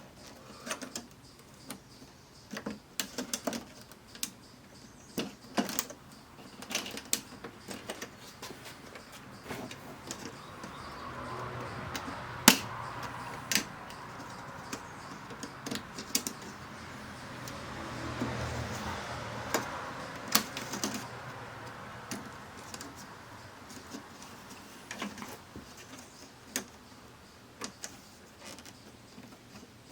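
Irregular small clicks and light knocks of plastic and metal parts being handled and unclipped while an LCD TV is taken apart, with a longer stretch of rubbing noise in the middle and one sharper click about twelve seconds in.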